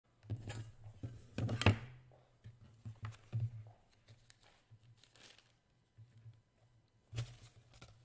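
Thin sized Xuan paper being handled and lifted off a table: a few bouts of rustling and crinkling with light thumps, loudest about a second and a half in.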